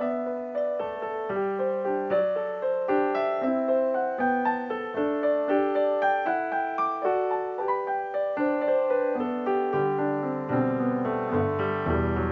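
Background piano music: a melody of single struck notes, several a second, with lower bass notes joining near the end.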